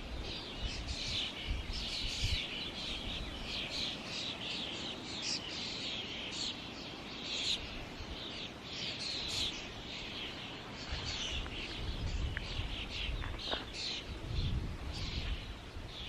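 Several small birds chirping and singing continuously, many short quick notes overlapping, over a steady low background hiss.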